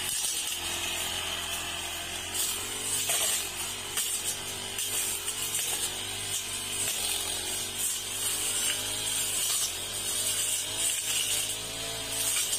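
Backpack brush cutter's small petrol engine running at high speed as its cutting head slashes through weeds and brush. Its pitch wavers up and down under the changing load.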